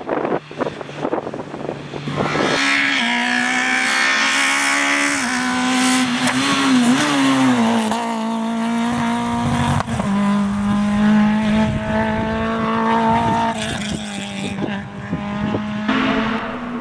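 Rally car engines running hard at high revs on a stage, the note held high and steady through the bends with brief dips as the driver lifts. There is some tyre noise, and the engine note shifts as different cars go by.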